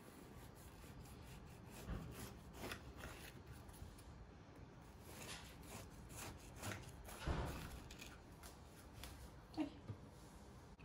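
Kitchen knife sawing down through a raisin bundt cake: faint rasping strokes through the crust, with a few louder soft bumps, about two seconds in and again around seven seconds.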